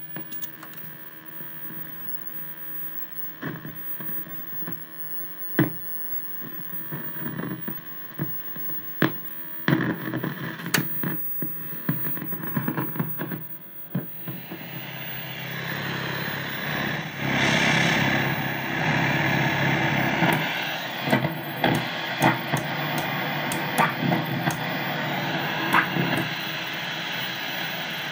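1966 Philco valve television set humming through its speaker, with sharp clicks as its front-panel knobs are turned. About halfway in, a loud hiss of static comes up and carries on to the end.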